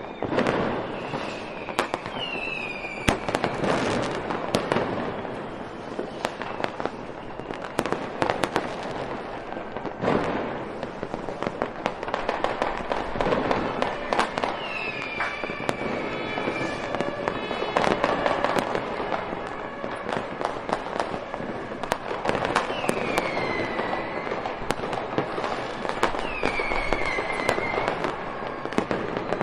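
Fireworks going off without pause: dense bangs and crackling, with several whistles that fall in pitch before settling.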